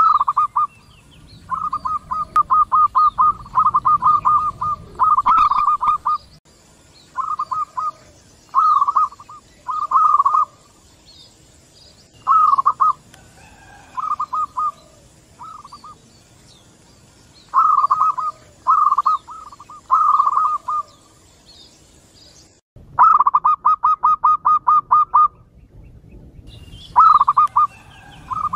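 Zebra doves (local perkutut) cooing: repeated phrases of quick rolling notes, several birds calling back and forth with short pauses between phrases.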